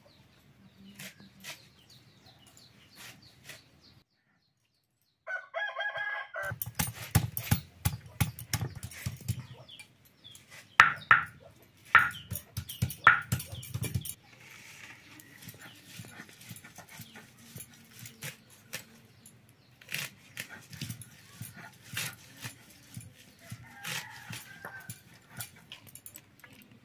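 A rooster crows once, about five seconds in. Then water splashes and leaves rub and slap in a steel plate as red amaranth leaves are washed by hand, with several sharp clacks. Near the end, quieter clicks and snips as the leaves are cut on a bonti blade.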